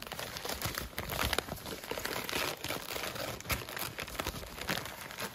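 Gift wrap crinkling and tearing as a wrapped package is pulled open by hand, a busy, irregular crackle.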